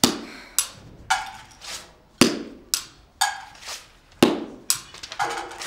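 A run of sharp, hard knocks at a steady pace of about two a second, alternating stronger and weaker, each with a short ringing tail.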